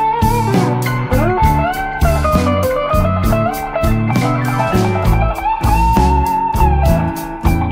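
Background music: a bluesy electric guitar tune with bending notes over bass and a steady beat.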